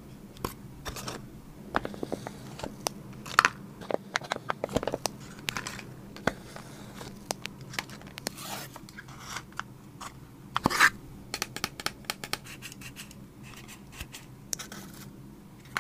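Paper and cardboard craft pieces being handled: a string of light taps, scrapes and rustles, with two louder taps about three seconds and about eleven seconds in.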